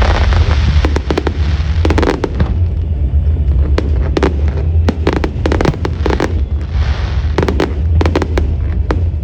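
Fireworks display: a rapid, irregular run of sharp bangs and crackles over a steady low rumble.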